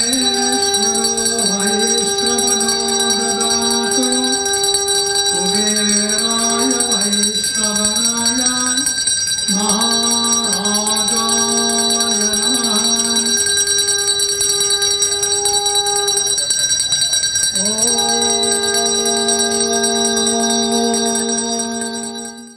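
Conch shells (shankh) blown as in Hindu ritual: long held tones, each scooping upward in pitch as it starts, broken by short pauses for breath about 4, 9 and 17 seconds in. A steady high ringing sounds underneath, and the sound fades out at the end.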